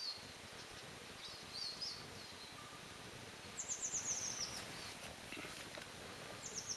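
A songbird singing short, high phrases of quick notes falling in pitch, repeated every two to three seconds over a faint steady background hiss.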